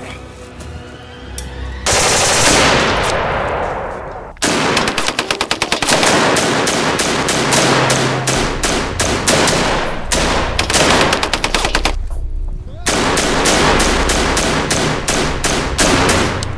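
Rapid automatic machine-gun fire in long continuous bursts, with a short break about twelve seconds in. Before the firing begins, a loud rushing noise starts suddenly and falls in pitch over a couple of seconds.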